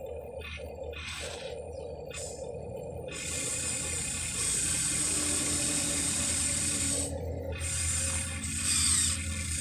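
Electric motors and gearboxes of a Huina 1593 RC excavator whirring steadily, joined about three seconds in by a louder, hissing scrape.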